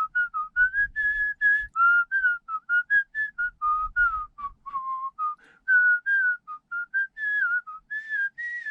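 A person whistling a tune: a quick, continuous run of short, clear notes stepping up and down.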